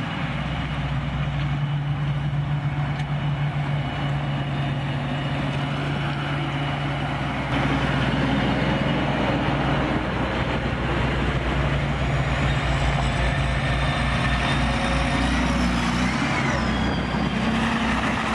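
Diesel engine hum from a John Deere 7950i forage harvester driving by. About seven seconds in it gives way to a louder large John Deere tractor pulling a silage trailer close past, with tyres rolling over the gravel track.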